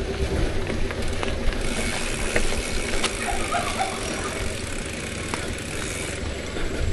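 Bicycle being ridden along a dirt trail: a steady rumble of wind and tyres on the ground, with the bike rattling and a few light clicks.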